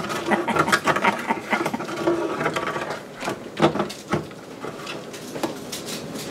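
Wooden spoon stirring a thin egg-and-vinegar dressing in an enamel saucepan, scraping and knocking against the pan's bottom and sides in irregular clicks and scrapes.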